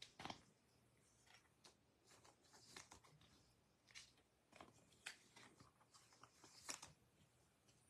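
Faint, scattered rustles and light taps of trading cards being handled, slid and laid down by hand on a playmat.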